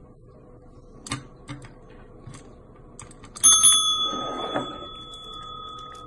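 Chrome service bell on a tabletop, struck by a cat's paw about three and a half seconds in: a sharp ding that rings on with a steady, slowly fading tone. A few soft taps come before it, and a short muffled noise follows just after the strike.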